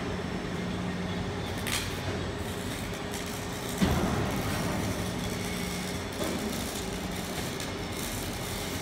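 Electric gear motors of a one-ton tilt-and-turn welding positioner running as the table tilts back to level and turns, a steady mechanical hum. A single clunk sounds about four seconds in.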